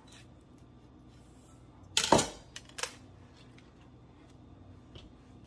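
Quiet handling of an avocado as a chef's knife cuts around its pit. About two seconds in, one sharp knock, then a lighter click, as the knife meets the wooden cutting board and is set down.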